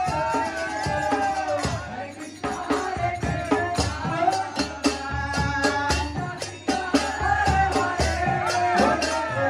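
Devotional kirtan music: voices singing over jingling percussion and a steady drum beat. The sound changes abruptly twice, about two and a half and seven seconds in.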